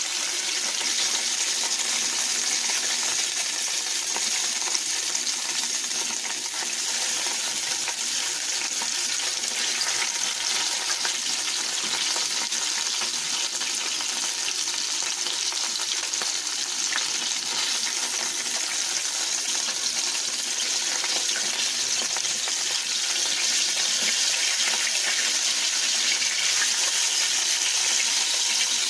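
Flour-dredged chicken liver pieces frying in hot olive oil in a pan: a steady sizzle.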